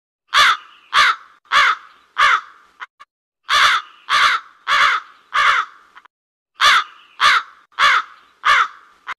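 Crow cawing: three runs of four caws, the caws a little over half a second apart, with a short pause between runs.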